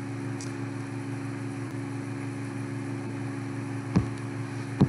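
Steady low electrical hum, several even tones, under faint hiss, with a short click about four seconds in and another just before the end.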